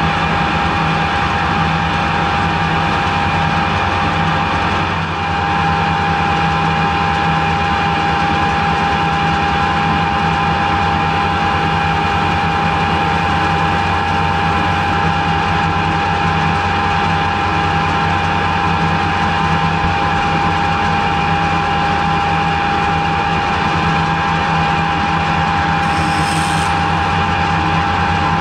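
Harrison metal lathe running steadily under power, its headstock giving a constant low hum with a steady high whine over it.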